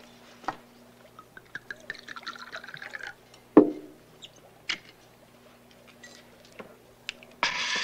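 Wine poured from a bottle into a small glass for about two seconds, then a sharp knock as the bottle is set down on the table, followed by a few light clicks of glass. A burst of hissing noise comes near the end.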